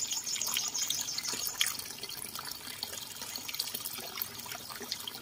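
Dogs eating wet rice from stainless steel bowls: irregular wet chewing, lapping and smacking clicks, with a sharper click about one and a half seconds in.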